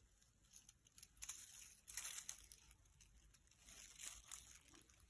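Faint rustling and crinkling of a scarecrow decoration's burlap and paper streamers being handled, in short bursts, loudest about two seconds in.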